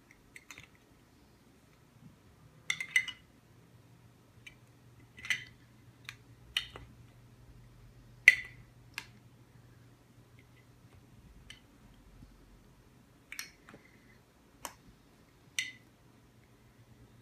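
Plastic Lego pieces clicking and knocking together as they are handled, about a dozen sharp, irregular clacks, the loudest about eight seconds in.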